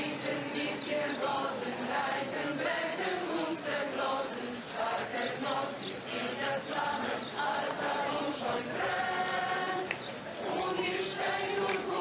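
A choir singing, the voices moving together and holding long notes.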